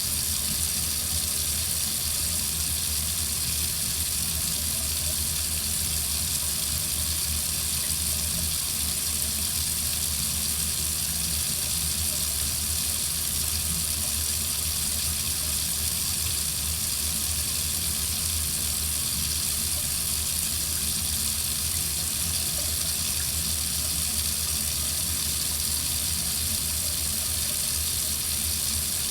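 Water tap running steadily into a sink, an even rushing hiss.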